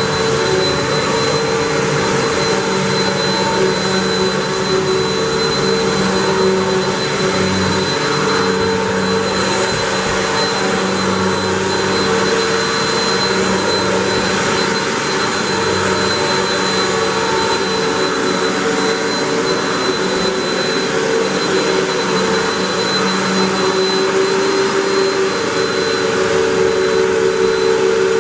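Hoover WindTunnel 3 Pro Pet upright vacuum running steadily with its brush roll spinning, pushed over carpet.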